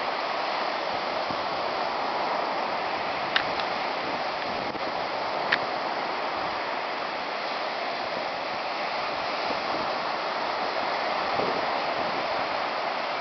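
Ocean surf breaking and washing up the beach, a steady rushing hiss, with two short sharp clicks about two seconds apart.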